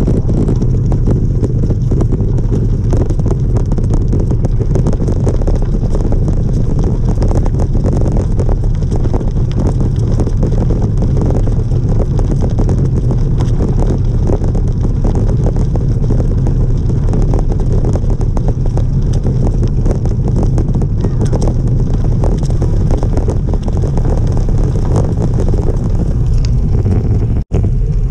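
Steady wind rush buffeting the microphone while riding a bicycle along a trail, a loud low rumble with no break.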